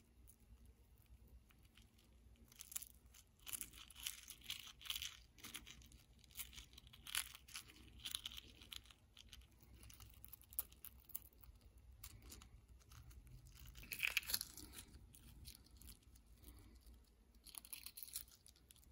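Cracked shell of a cooled hard-boiled egg being peeled off by hand, giving irregular spells of small crackles and tearing, loudest about fourteen seconds in.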